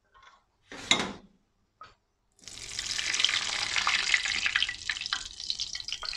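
Hot browned butter sizzling and crackling as it is poured from a copper pan into a bowl and scraped out with a wooden spoon. A single sharp knock about a second in, before the sizzling starts.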